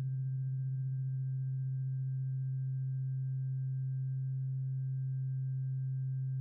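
A single steady low electronic tone, like a sine-wave drone, held without change, with faint higher overtones.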